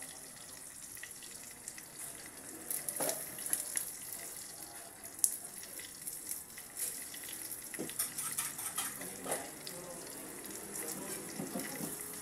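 Eggs frying in oil in a pan: a steady high sizzling hiss with scattered pops and crackles, the sharpest pop about five seconds in.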